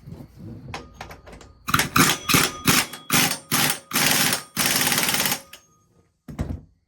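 Impact wrench hammering in about six short bursts in quick succession, then one brief burst near the end, tightening the flywheel nut on a VW Beetle engine. That nut has a very high torque spec, around 247 foot-pounds, so the wrench is used to get it as tight as it will go.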